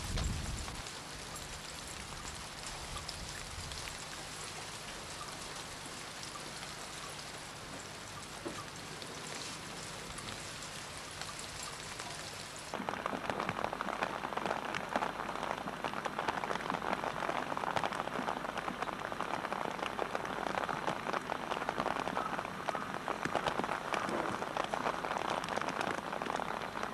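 Rain, with water trickling down a rain chain onto wet pebbles, as a steady hiss. About thirteen seconds in it changes abruptly to louder rain with many close, dense drips.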